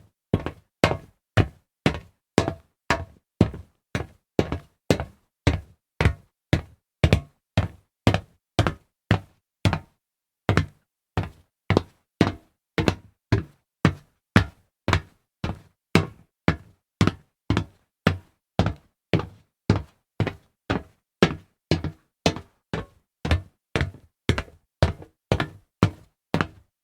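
Footsteps walking on a solid metal surface, an even run of hard knocking steps at about two a second, with a brief pause about ten seconds in.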